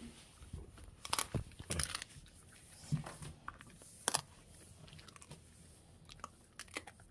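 A mixed-breed dog chewing and biting a hard homemade treat: irregular crunches, a burst of them between about one and two seconds in and another sharp one about four seconds in, with softer chewing between.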